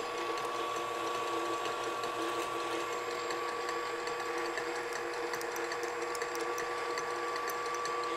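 Tilt-head stand mixer running steadily at medium speed, its wire whisk beating egg whites to a froth in a stainless steel bowl; the motor gives an even, unchanging whine.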